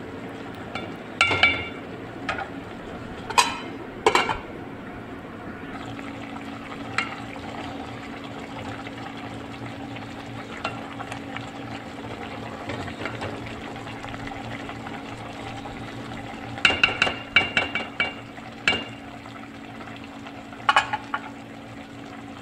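Malabar spinach cooking in a pot with a steady sizzle, broken by a few short bouts of a metal spoon clanking against the pot as it is stirred: about a second in, twice around three to four seconds, a quick run of strokes about three quarters of the way through, and once more near the end. A steady low hum comes in about six seconds in.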